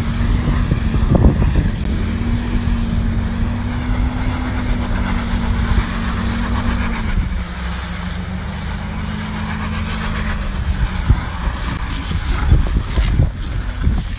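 Vehicle engine running at low speed as it crawls over a rocky wadi bed, with knocks and thumps from the tyres and body on the rocks. The engine note drops about halfway through, and the knocks come thicker near the end.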